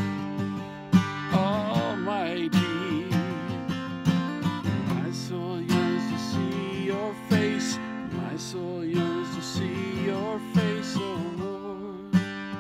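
Acoustic guitar strummed with a capo at the fifth fret, with a wordless hummed melody wavering over the chords.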